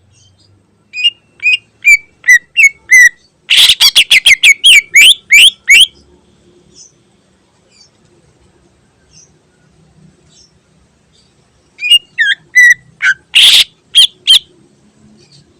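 Cucak ijo (greater green leafbird) singing loud, sharp whistled notes. A few separate notes lead into a fast run of about a dozen notes. After a pause of several seconds comes another short burst.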